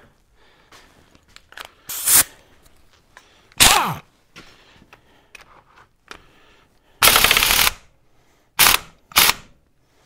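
Impact wrench hammering in several short bursts, the longest about seven seconds in, breaking loose the stuck castle nut that holds a motorcycle fork's cartridge valve assembly, which would not turn with a hand wrench.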